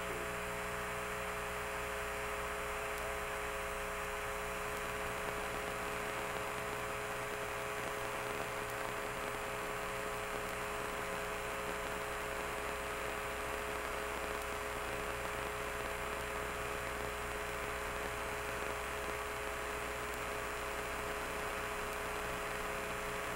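Steady electrical hum with hiss, made up of several fixed tones that do not change throughout.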